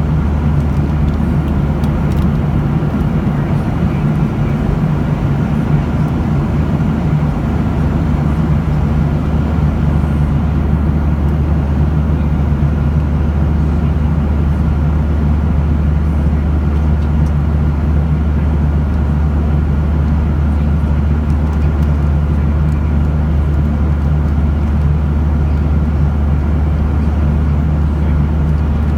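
Jet airliner cabin noise at cruise altitude: the steady drone of the turbofan engines and airflow, heaviest at the low end, with a few faint steady tones above it.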